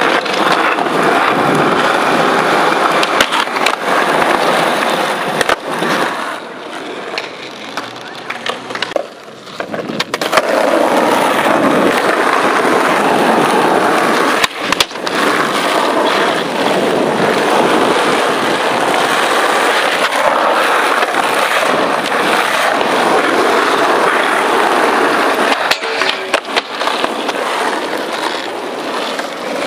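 Skateboard wheels rolling over rough asphalt, a steady gritty rumble, broken by a few sharp clacks about ten and fifteen seconds in.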